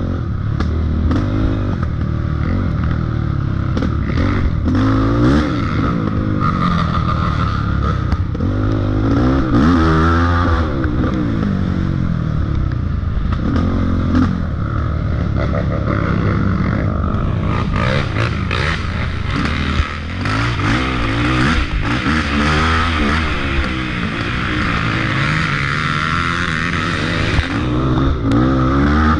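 Off-road dirt bike engine under load on a rough trail, its revs rising and falling again and again as the throttle opens and closes, with frequent knocks and clatter from the bike. A steady hiss joins in about two-thirds of the way through.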